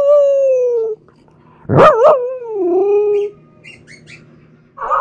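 Pomsky puppy howling in drawn-out, talking-style yowls: one howl falls in pitch and ends about a second in, a second one wavers and then slides down, and a third begins near the end.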